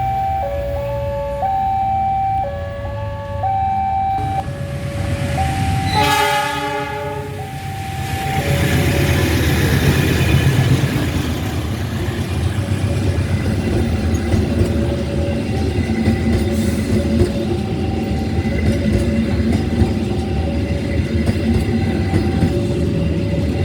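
Level-crossing warning alarm alternating between two tones. A loud train horn blast comes about six seconds in and lasts a second and a half. Then the train rumbles and clatters past over the crossing, with the alarm still faintly sounding.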